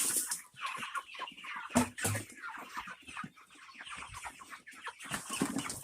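Game fowl clucking, amid many short clicks, with one sharp knock nearly two seconds in.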